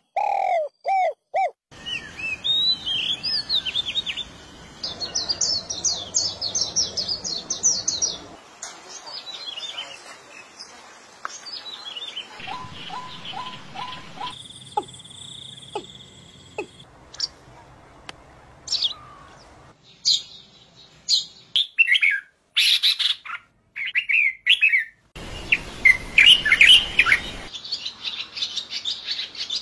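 Calls of several different bird species in quick succession, each recording cut off abruptly. It starts with a spotted dove's repeated low coos, runs through various chirps, whistles and trills, and ends with a barn swallow's busy twittering.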